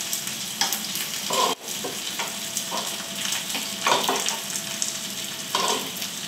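Breaded chicken nuggets sizzling in hot fat in a frying pan, a steady crackling hiss, with a few short scrapes and knocks of a utensil in the pan as the nuggets are turned.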